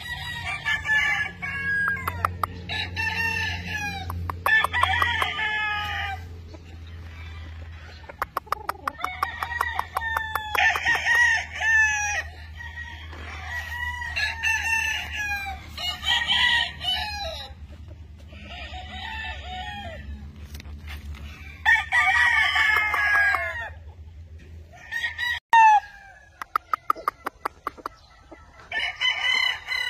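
Gamecocks crowing over and over, one long crow after another from several birds, with bursts of rapid clicking between some of the crows.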